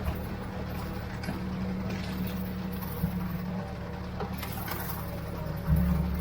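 Ford 3600 tractor engine running steadily under load while pulling a bush hog rotary mower through tall grass, growing briefly louder near the end.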